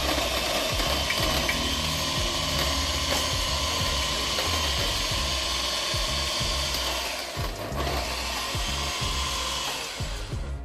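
Welhome ZD-16 electric coffee grinder running steadily, grinding espresso beans at a medium setting with a crackle of beans breaking. It tails off near the end.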